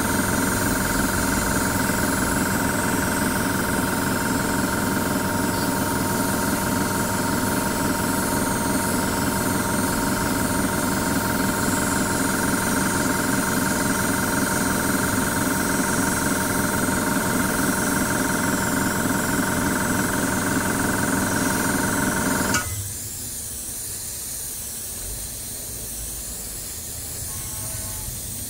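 Airbrush compressor running with a steady mechanical hum and hiss, cutting out suddenly about 23 seconds in. What remains is the softer hiss of the airbrush spraying paint.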